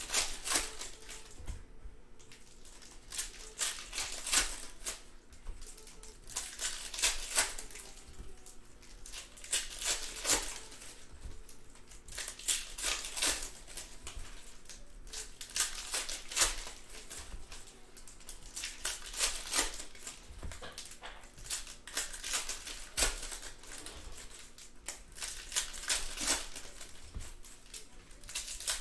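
Panini Contenders football card packs being torn open and their wrappers crinkled, with cards handled, in short crackling bursts every second or two.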